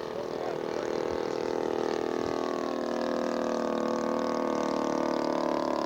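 Engine of a radio-controlled scale model airplane running steadily on its descent toward a touch-and-go, its pitch dipping slightly about two seconds in and then holding.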